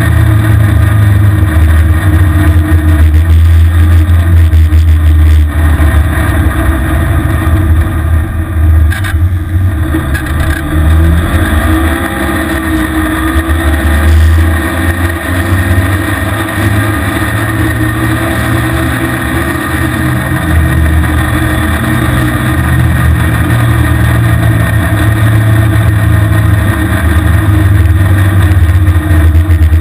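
Engine of a small off-road vehicle running under way through snow, its speed rising and falling a few times with the throttle, over a steady rush of wind noise.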